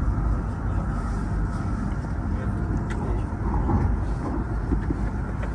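Steady low rumble of a CR400BF-A Fuxing high-speed electric multiple unit running on the line, heard inside the passenger car.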